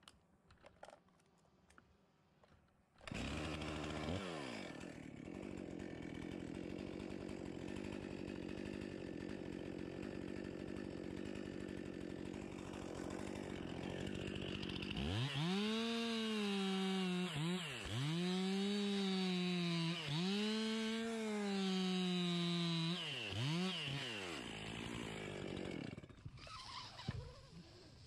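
Two-stroke chainsaw running: it comes in suddenly about three seconds in and idles steadily, then from about halfway is revved to full throttle in four long stretches with sharp drops between them. A couple of short blips follow, and it stops a couple of seconds before the end.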